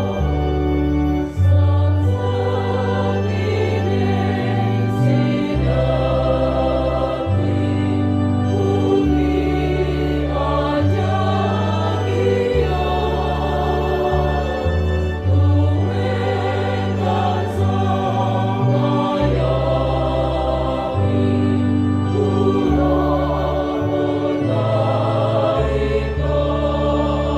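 Church choir singing a song in several parts, over low held bass notes that change every second or two.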